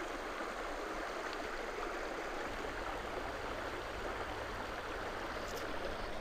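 Shallow, rocky river flowing: a steady, even rush of running water.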